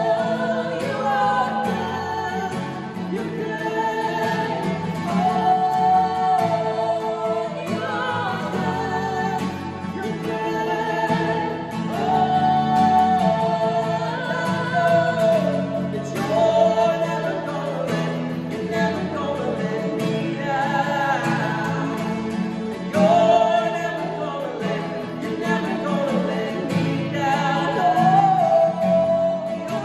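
Christian worship song sung by a man and a woman together, with a strummed acoustic guitar.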